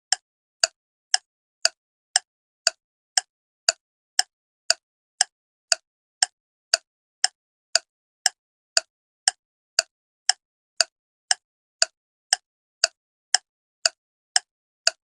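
A short, pitched plopping click repeating at a perfectly steady pace, about two a second.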